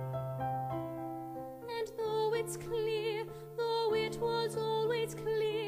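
Solo piano plays sustained chords as an introduction, then a woman's singing voice with a clear vibrato comes in about two seconds in and carries on over the piano accompaniment.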